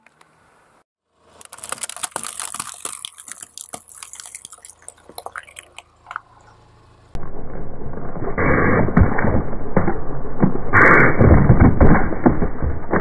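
A car tyre rolls over objects and crushes them: crackling, cracking plastic and squelching jelly and liquid. About seven seconds in it turns into a louder, muffled run of popping and splattering as eggs and a plastic ketchup bottle burst under the wheel.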